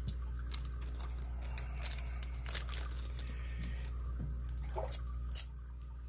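Hands handling a brass padlock and metal tools on a workbench: scattered light clicks and knocks, the sharpest about five and a half seconds in, over a steady low hum.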